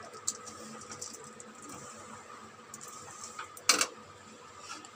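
Steel spatula stirring and scraping dry sugar in a metal kadai, quiet and grainy, with a few light taps and one sharp scrape against the pan a little past halfway. A faint steady hum runs underneath.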